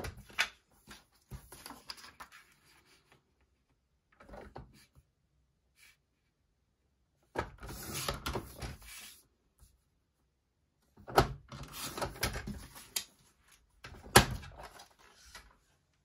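Sliding-blade paper trimmer cutting light brown speckled paper: several separate strokes of the blade carriage along its rail, with the paper being handled between them and a couple of sharp clicks near the end.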